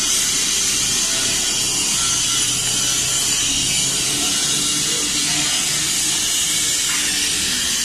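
Steady, loud machine noise: an even hiss with a faint low hum underneath.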